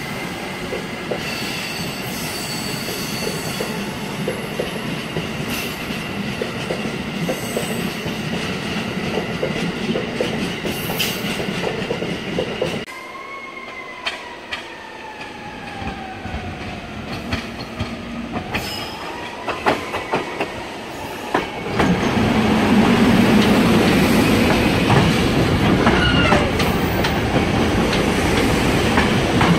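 An Amtrak passenger train of stainless-steel coaches rolls past with steady rail noise and a faint, high wheel squeal. Then a SEPTA Silverliner IV electric commuter train approaches with a whine falling in pitch, and its rolling and wheel noise gets much louder about 22 seconds in as it passes close by.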